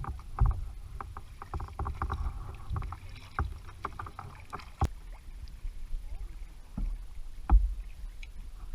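Kayak paddling on calm water: paddle blades dipping and dripping, with scattered light clicks and knocks. There is a sharper click about halfway through and a couple of heavier thumps near the end.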